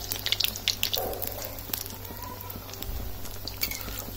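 Potato tikki deep-frying in hot oil in a kadhai: the oil crackles and spits sharply for about the first second, then settles to a softer, steady sizzle with only an occasional pop.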